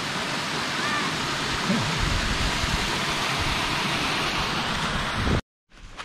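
Small creek spilling over layered rock ledges: a steady rush of water that cuts off suddenly about five and a half seconds in.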